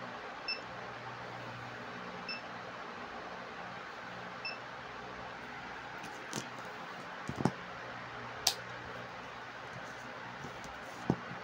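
UNI-T UT15B Max multimeter giving three short, high beeps about two seconds apart as its RANGE button is pressed. In the second half come a few sharp clicks and knocks from the test leads being handled, over a steady hiss.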